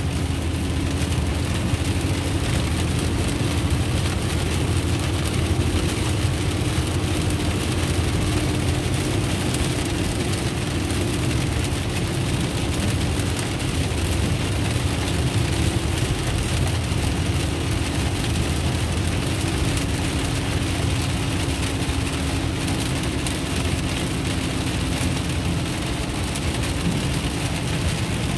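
Steady road noise inside a car driving on a rain-soaked road: engine and tyre rumble with a faint steady hum and a hiss of spray over it.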